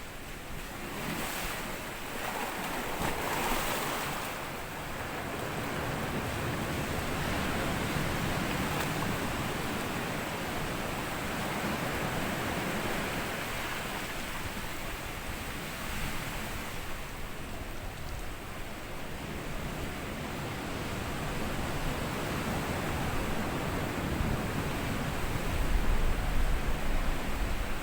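Small sea waves breaking and washing over a sandy shore, swelling and ebbing, with a hissing surge a few seconds in and a louder low rumble near the end.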